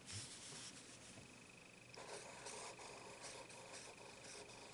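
Faint scratching of a felt-tip marker writing on paper, starting about two seconds in.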